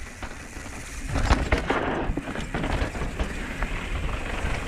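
Mountain bike rolling fast down a dirt and rock trail: tyres crunching over loose ground, with many small clattering knocks and rattles from the bike. It grows louder about a second in.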